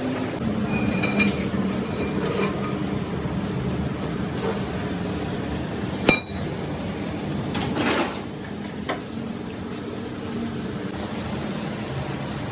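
Metal parts and tools clinking against each other, with one sharp metallic knock about six seconds in and a short rushing burst soon after, over a steady low machine hum.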